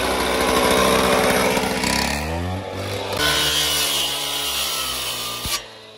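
Petrol two-stroke cut-off saw running at high revs. Its engine note falls about two seconds in, then its abrasive disc grinds into a car's metal bodywork, throwing sparks. The sound cuts off abruptly near the end.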